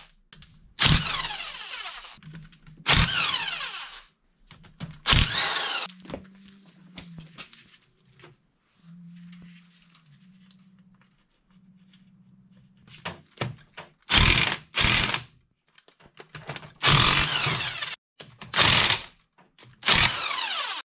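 A small corded handheld rotary power tool run in about eight short bursts, each spinning up and winding down with a falling whine, with a faint low hum in a quieter stretch in the middle.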